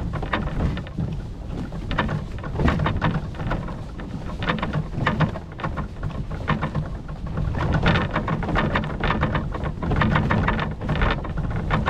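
Wind rumbling on the microphone over a dense, irregular patter of water drops and splashes.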